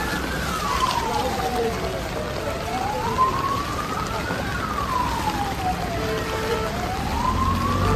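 Emergency siren wailing, its pitch slowly rising and falling about every four seconds, over the steady hiss of rain.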